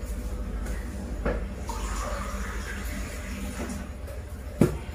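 Water running briefly from a kitchen tap, with a light knock before it and another near the end.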